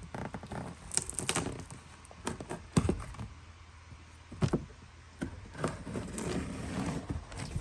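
A taped cardboard shipping box being handled and worked open: scattered knocks and thumps on the cardboard, the loudest about three seconds in, with scraping and rustling near the end.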